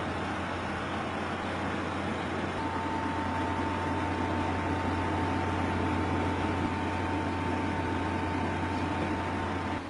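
A newly built desktop PC running: its case and CPU fans give a steady whir over a low hum. A thin steady whine joins about two and a half seconds in and stops just before the end.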